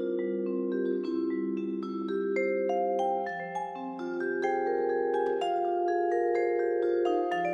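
Yamaha vibraphone played with four yarn mallets: a line of struck notes over low notes held underneath, each note ringing on long so they overlap in sustained chords.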